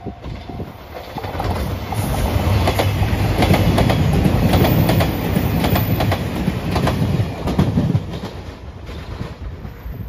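JR Shikoku 2700 series diesel limited express train passing close by: its engine hum and wheel noise rise, peak midway with a steady clatter of wheels over rail joints, and ease off about eight seconds in.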